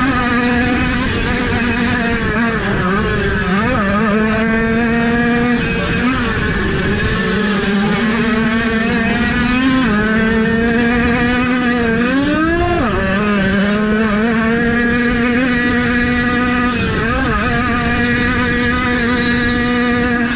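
Two-stroke engine of a 50cc youth motocross bike running at high revs, its pitch mostly held steady but dipping and climbing back several times as the throttle is rolled off and opened again.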